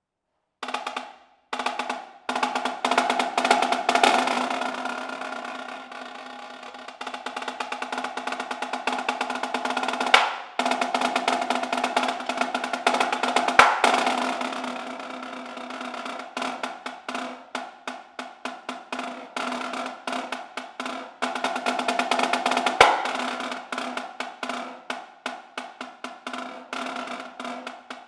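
Marching snare drum played solo: fast rolls and rapid sticking patterns that swell and fade in loudness, punctuated by a few loud accented hits.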